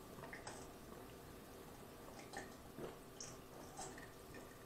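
Faint gulps and swallows of a person drinking water from a glass, a handful of soft, short clicks spread through an otherwise quiet stretch.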